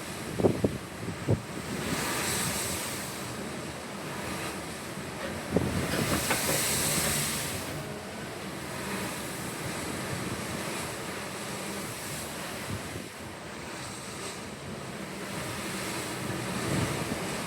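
Ocean waves washing in, with the rush swelling twice in the first half, while wind buffets the microphone in a few low thumps near the start and about five seconds in.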